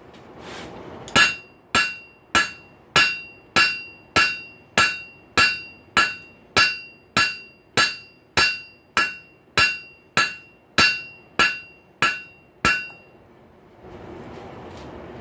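Blacksmith's hammer striking a hot rail spike on an anvil, about twenty evenly paced ringing blows, a little under two a second, flattening the end of the spike. The hammering stops near the end and a steady rushing noise follows.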